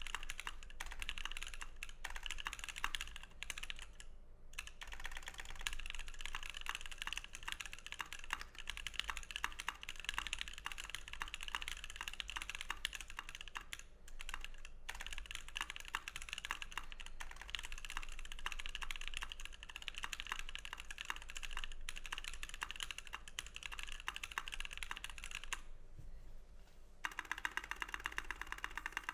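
Typing on a Savage65 custom mechanical keyboard with Novelkey Cream linear switches lubed with Tribosys 3204, an FR4 plate and EnjoyPBT PBT keycaps: a steady run of keystrokes with a few brief pauses, turning faster and denser near the end.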